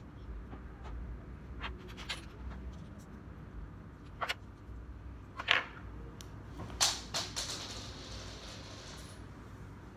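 Small plastic LEGO pieces clicking together and being set down on a wooden table: a handful of sharp clicks and taps, the loudest about five and a half and seven seconds in, followed by a short rustle.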